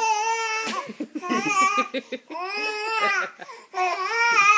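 A baby squealing and laughing: long, high-pitched squeals with a wavering pitch, and a run of quick laughs about a second in.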